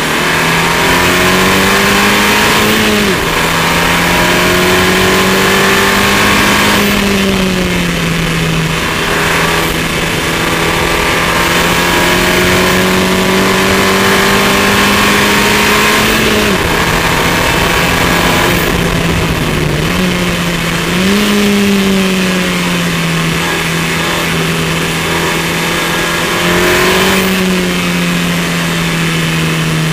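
KTM X-Bow R's turbocharged four-cylinder engine pulling hard on track at a fairly steady pitch, with a few brief dips in pitch and quick rises where the driver changes gear or lifts. Heavy wind rush runs under it, the open cockpit leaving the car exposed to the airflow.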